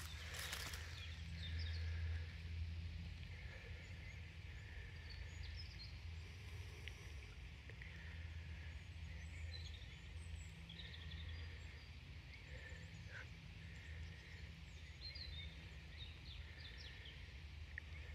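Quiet outdoor ambience: faint birdsong in short, scattered chirps over a low, steady rumble, with a brief rustle in the first second.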